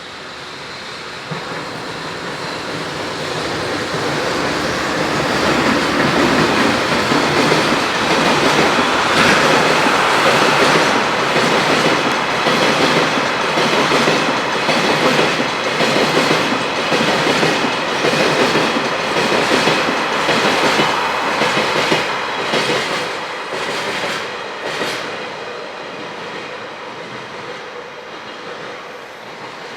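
A JR Freight train hauled by an electric locomotive passing close by, its wheels clacking over the rail joints in a steady repeating rhythm. The sound swells over the first few seconds, stays loud as the wagons roll past, and fades away near the end.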